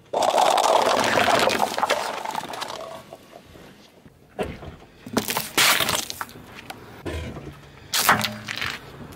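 Paper cups crushed under a car tyre: a loud crackling crunch lasting about two and a half seconds. Two shorter bursts of crushing follow later, the last near the end.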